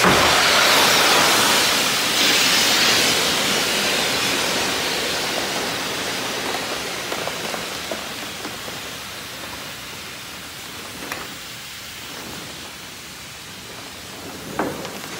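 Compressed gas rushing from the cylinder into a Nebulus emergency flotation device as it inflates after the ripcord pull: a loud, steady hiss that is strongest at first and slowly fades as the bag fills. A couple of light knocks of handling come near the end.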